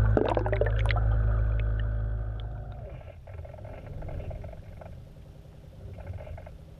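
RC camera boat's motor and propeller running, heard underwater through the camera housing as a low rumble with a steady whine. The whine winds down about two and a half seconds in as the motor slows, leaving faint water noise with a few splashy flurries.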